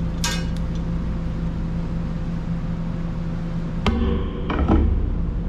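Hand tube bender being worked on a copper-nickel brake line: a short metallic ring just after the start, then two sharp knocks with a brief ring about four seconds in, as the bent line comes off the tool. A steady low hum runs underneath.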